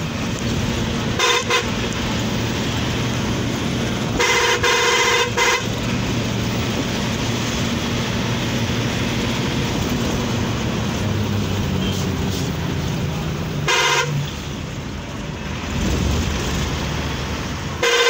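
A bus driving, its engine and road noise running steadily in the cabin, cut by loud horn blasts: a short one about a second in, a longer one around four seconds followed by a quick toot, another short one near fourteen seconds, and a last one starting at the very end.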